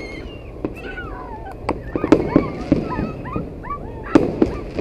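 Fireworks display: scattered sharp bangs and crackles among many short, high-pitched, wavering squeals.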